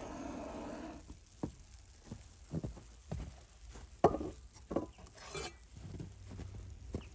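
Handheld butane blowtorch on a screw-on gas canister running with a steady rushing flame, cut off about a second in. Then scattered knocks and handling sounds, the loudest a sharp knock about four seconds in as the canister is set down on a wooden table.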